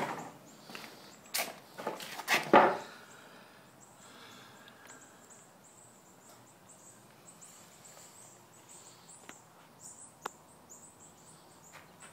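A few sharp knocks and scuffs, the loudest about two and a half seconds in, then faint scattered ticks and short high chirps. The saw itself is not running.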